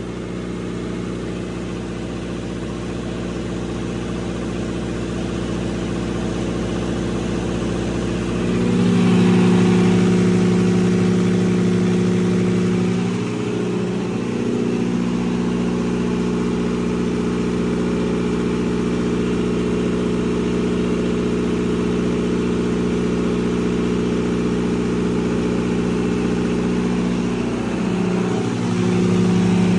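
Diesel standby generator set running at a steady speed, a constant engine hum with strong even tones. It gets louder about nine seconds in and again near the end.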